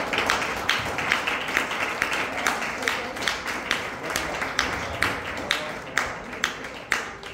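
Small audience applauding, with a few sharp claps close to the microphone standing out about two or three a second; the applause thins out near the end.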